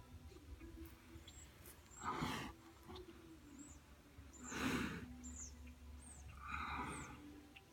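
Large brown bear breathing heavily in three slow, breathy huffs about two and a half seconds apart, with a short low hum after the second. Small birds chirp faintly in the background.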